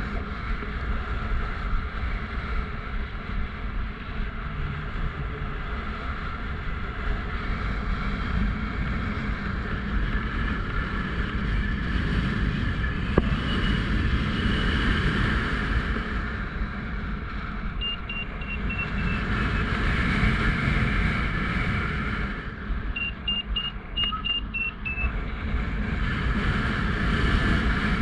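Strong wind buffeting the microphone in flight, a steady rumble that swells and eases. Twice in the second half, a paragliding variometer gives short runs of quick high beeps.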